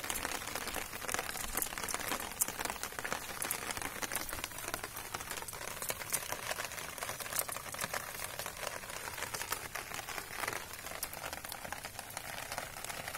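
Rain falling steadily: a hiss with many irregular, sharp drop ticks close by.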